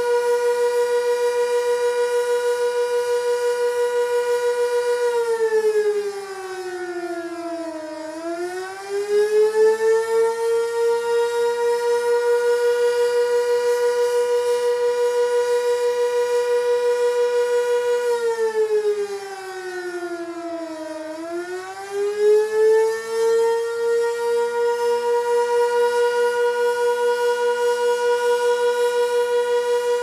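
Sentry 16V1T-B outdoor warning siren sounding its Attack signal: a loud, steady wailing tone that twice sags in pitch for a few seconds and climbs back, once about a fifth of the way in and again just past the middle.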